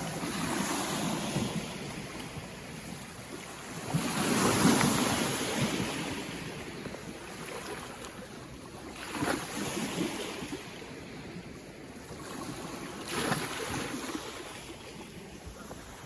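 Lake Ontario waves breaking on the shore in a row of four swells, each rising and then fading. The loudest comes about four seconds in.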